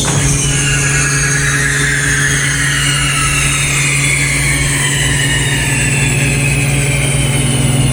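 Farm machinery engine running steadily, with a high mechanical whine slowly falling in pitch.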